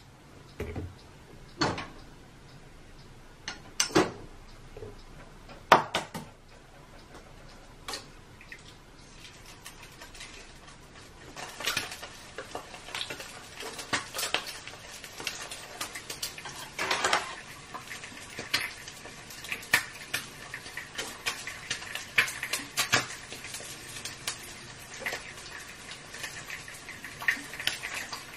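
Kitchen handling sounds: a few separate knocks and clatters, then a spoon stirring and scraping in a small glass bowl of yogurt, with many quick light clinks.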